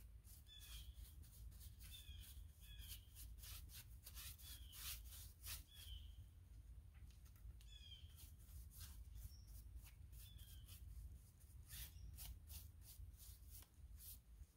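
Faint short, falling bird chirps, repeated about seven times, over a scatter of brief scratching strokes from a hand tool worked on wood.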